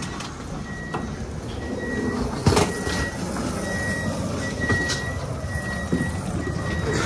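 An electronic warning beeper sounding a short, steady high beep about once a second, over a background of rumble and clatter, with one sharp knock about two and a half seconds in.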